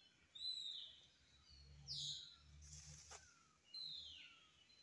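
Wild birds calling: three loud whistles that slide downward in pitch, spaced about a second and a half apart, over fainter, repeated short falling chirps from other birds.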